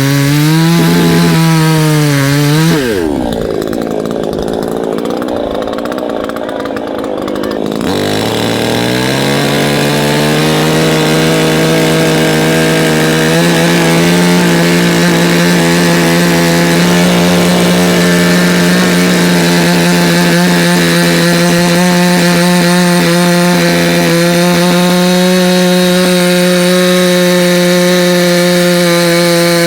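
Proyama 68cc two-stroke gas chainsaw cutting wood, its engine pitch dipping under load for the first few seconds. Around three seconds in the revs fall off. About eight seconds in the engine revs back up and runs at a steady high pitch for the rest.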